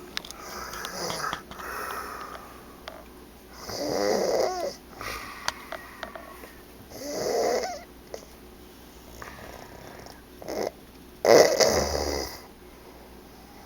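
A man snoring loudly while asleep: three big snores a few seconds apart, the loudest near the end, with softer breaths between them.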